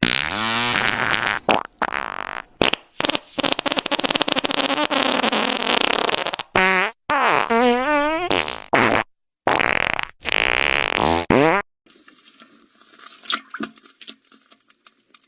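A recorded fart sound effect: a run of long, loud farts, one with a wavering pitch about eight seconds in. They stop abruptly about eleven and a half seconds in, leaving only faint scattered clicks.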